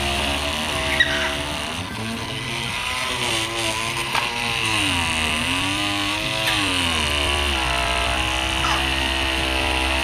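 Cordless oscillating multi-tool running as its blade cuts into the hard husk of a Monthong durian. The motor's buzz sags in pitch about halfway through as the blade loads up in the rind, then recovers.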